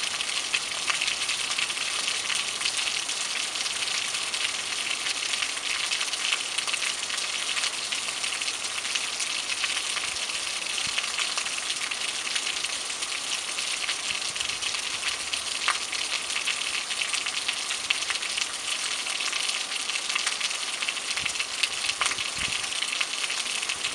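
Steady rain falling on a paved street and its puddles: an even hiss with scattered sharper drop ticks.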